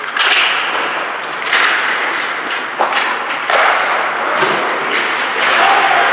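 Ice hockey play: a sharp stick clack at the faceoff, then skate blades scraping and carving the ice in repeated hissing swells, with a couple of stick-on-puck knocks about three seconds in.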